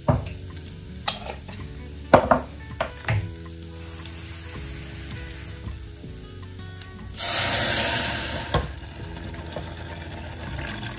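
Rice toasting in oil in a steel saucepan sizzles quietly while a wooden spoon stirs and knocks against the pan, sharply at the start and twice more a few seconds in. A loud rush of water lasts about a second and a half past the middle, as water is added to the hot rice.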